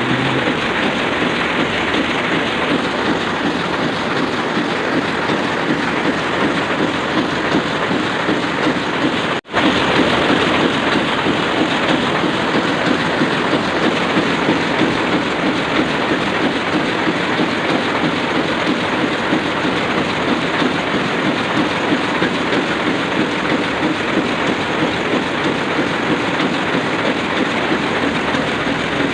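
Sakurai Oliver 66 offset printing press running, a steady, dense, rapid mechanical clatter. It breaks off for an instant about nine seconds in.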